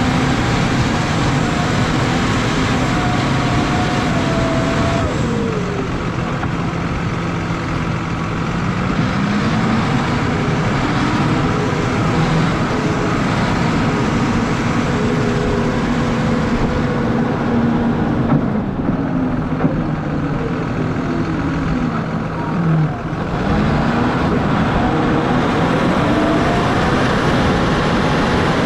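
John Deere 6155R tractor's six-cylinder diesel engine running under load while it pushes snow with a front plow. The engine note falls and climbs back twice as the revs change, over a steady rushing noise.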